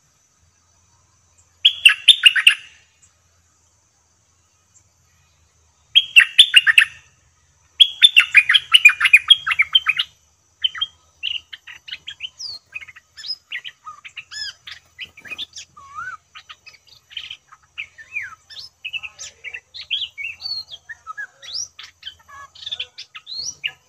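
Bulbul singing: three loud, rapid, bubbly phrases in the first ten seconds, followed by a long run of softer, varied chirps and whistles.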